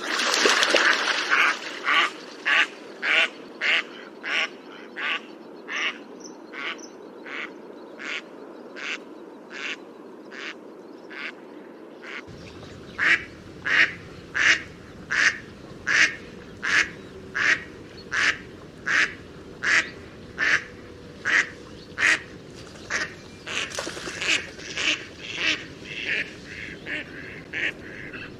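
Mallard quacking in a long series of short, evenly spaced quacks, about two a second. It starts with a loud burst of several quacks close together, and the quacks come faster and overlap near the end.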